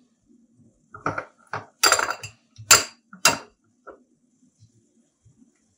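Metal spoon clinking against a bowl and metal trays while mayonnaise is spooned onto bao buns: about six sharp clatters over the first four seconds, the loudest near the middle.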